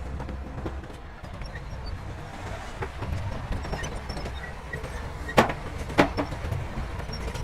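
Heavy earthmoving machine's diesel engine running with a steady low rumble. Two sharp knocks come about half a second apart near the end.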